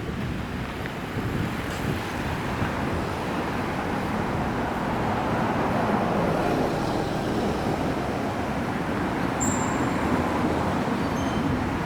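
Road traffic on a city street: the steady noise of passing cars, growing a little louder over the first half.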